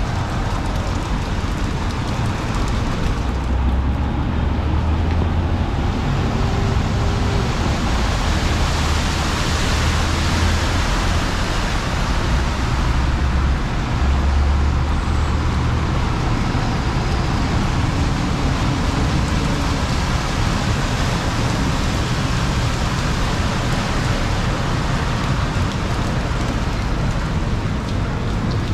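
Steady wash of rain and wet-street noise, with a low rumble in the first half that eases off about sixteen seconds in.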